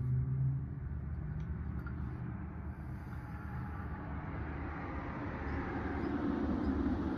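A steady low rumble of background noise that swells and grows louder toward the end.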